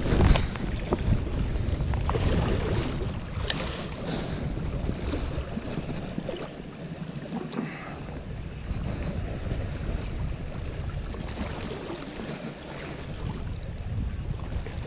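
Wind buffeting the microphone over the sea washing against the rocks, with a short louder rush at the very start and a few faint clicks.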